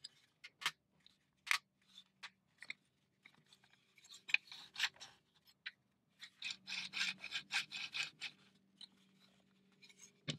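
Plywood parts of a Ugears wooden mechanical safe model worked by hand: scattered wooden clicks and knocks, then about two seconds of rapid clicking and rubbing some six seconds in.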